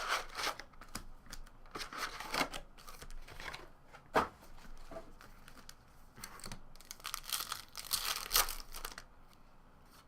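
Plastic and foil packaging of a box of sports trading cards being torn open and crinkled, in several rasping bursts with a short sharp one about four seconds in and the longest near the end.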